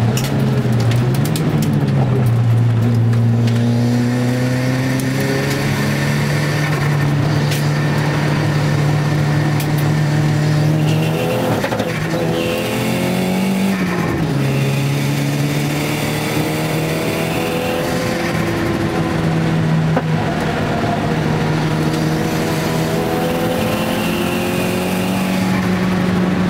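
Nissan Gazelle's turbocharged CA20DET four-cylinder engine driven hard on track, heard from inside the cabin. Its pitch climbs and drops several times through the gears and corners, easing off around the middle before pulling hard again.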